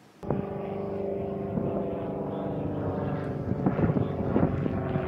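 A steady engine drone, with wind buffeting the microphone that grows stronger in the second half.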